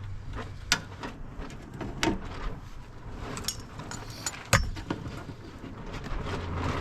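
Scattered sharp clicks and knocks from hands fitting zip ties around the wiring harness inside a car door, the loudest knock about four and a half seconds in, over a low steady hum.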